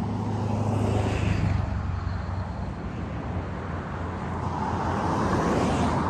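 Traffic on a busy road: a steady rumble of car tyres and engines that swells as vehicles pass, about a second in and again near the end.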